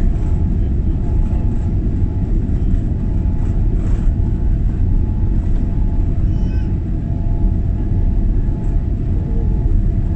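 Cabin noise aboard a Boeing 787 Dreamliner moving along the runway: a loud, steady low rumble from the engines and airframe, with a few faint steady tones above it.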